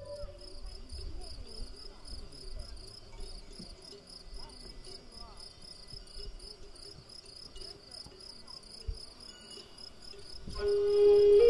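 Insect chirping: a steady, high, rapid pulsing that keeps an even rhythm. A held music tone comes in near the end.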